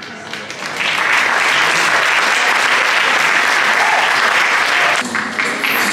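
An audience applauding, the clapping swelling about a second in and then holding steady.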